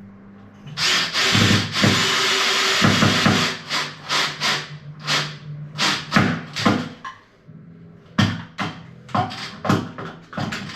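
Drill driving a screw into a wall plug: one run of about three seconds, then a string of short trigger bursts as the screw is driven home.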